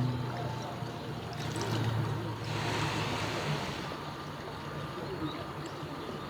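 Steady trickling and flowing water in a garden waterbird pond.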